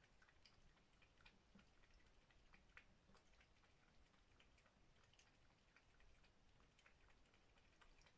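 A cat eating at its food bowl: faint, irregular wet clicks of its tongue and jaws, a few each second.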